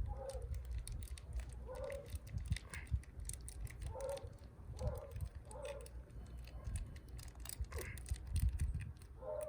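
Wind buffeting the microphone as a steady low rumble, with about five short animal calls at fairly even intervals and faint scattered clicks.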